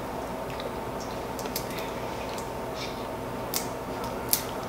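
Cooked shell-on shrimp being peeled by hand: a few faint, short crackling clicks of shell over a steady low room hum.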